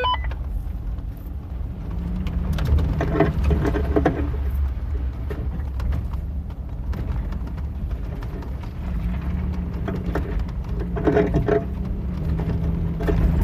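A vehicle driving along a dirt trail: a steady low engine and tyre rumble with rattling and crunching over the rough surface. The engine note rises twice, about two seconds in and again near the end.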